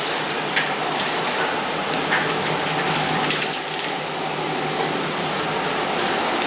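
Steady hiss and low hum with a few faint clicks of cartridges being pressed into pistol magazines.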